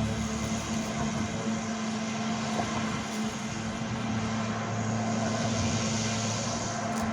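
Small engine of a lawn mower running steadily at a constant speed, with an even drone.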